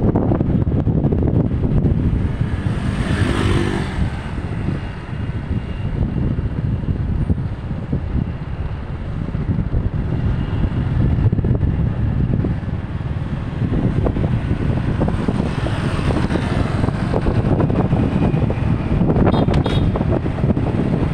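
Wind buffeting the microphone in a steady low rumble, with vehicles passing about three seconds in and again near the end.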